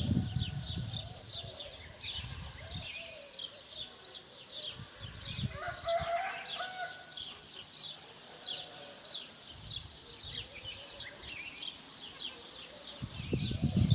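Many small birds chirping together: a busy, continuous stream of short, high, falling chirps, with a lower call about six seconds in.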